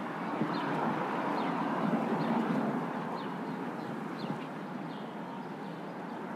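Steady traffic noise from the George Washington Bridge, with several short, high bird chirps over it, mostly in the second half.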